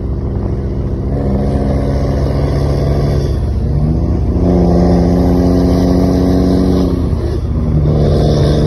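Scania R-series truck pulling a pair of tipper trailers, its diesel engine and exhaust note held at a steady pitch under load, breaking off briefly twice, about three and a half and seven seconds in, at gear changes and coming back at a new pitch each time. A steady low rumble of wind and road noise runs underneath.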